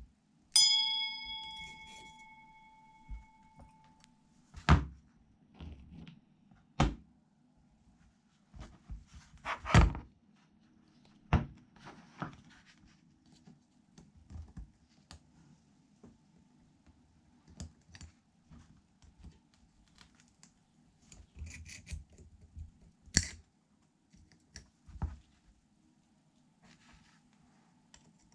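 Steel gearbox parts worked by hand with circlip pliers: scattered clicks and knocks of metal on metal as a circlip is worked on the gear shaft, with a handful of louder clanks. Near the start, a bell-like ring that fades over about three seconds.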